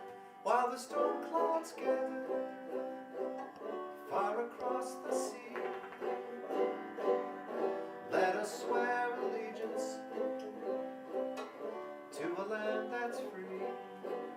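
Instrumental music on plucked strings, a banjo leading with quick picked notes and no singing.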